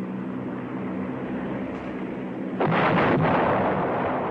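Steady drone of an aircraft engine overhead, then a loud bomb explosion about two and a half seconds in that fades over a second or so.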